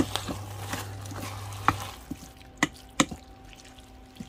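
Wooden spatula stirring and scraping seasoned ground chicken around a stainless steel mixing bowl, with a few sharp knocks of the spatula against the bowl. A low hum under it cuts out about two seconds in.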